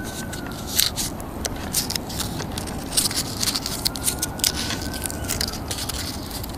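Irregular small clicks and crinkles from a 9-volt battery snap lead, wrapped in tape, and its wires being handled.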